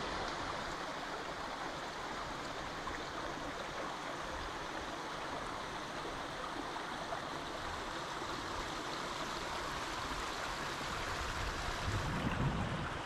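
Small rocky mountain brook trickling and splashing over stones in a steady rush of water. A low thud comes near the end.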